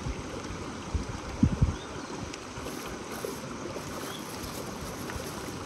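Steady rush of river water, with a couple of short low thumps about a second and a half in.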